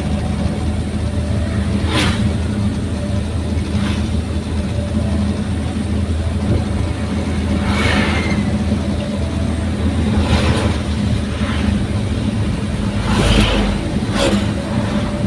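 Daihatsu Gran Max pickup's engine and exhaust running with a steady low drone while driving, with a few short knocks along the way.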